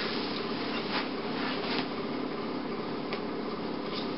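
Steady room noise with a faint hum, broken by a few soft clicks.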